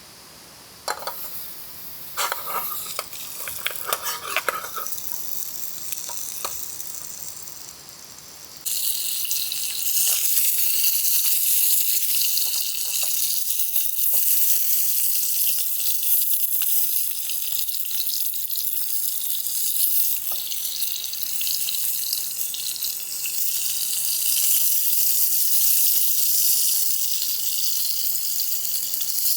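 A few light clinks and knocks of cookware, then food starts sizzling in a hot pan with a sudden onset: a loud, steady, crackling high hiss.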